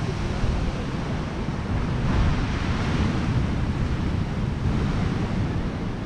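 Sea surf washing on the beach, with wind rumbling on the microphone; a wave's wash swells about two seconds in.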